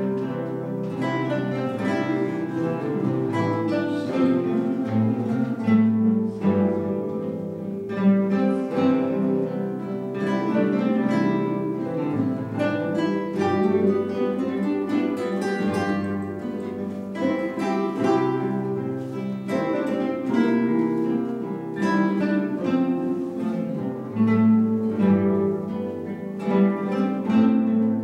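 An ensemble of classical guitars playing a piece together, many plucked notes and chords sounding at once.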